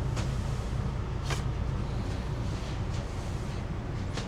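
Motor yacht's engines running, a steady low drone with a constant hiss over it. Two short clicks cut through, near the start and about a second in.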